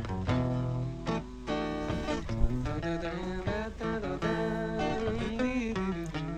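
Song music led by acoustic guitar, plucked and strummed, in an instrumental stretch between sung lines.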